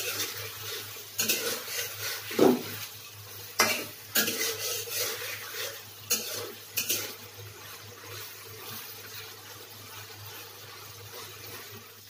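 Metal spatula scraping and knocking against a metal karahi while stirring hilsa fish heads frying in masala, with a frying sizzle underneath. The stirring strokes come in the first seven seconds or so, then the sizzle goes on alone.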